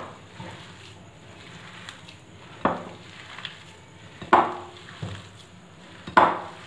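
A hand mashing and mixing spiced potato filling in a glass bowl, with three sharp knocks roughly two seconds apart as the hand presses the mash against the bowl.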